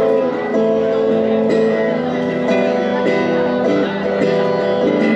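Guitar music: plucked and strummed chords with ringing notes that change about every second.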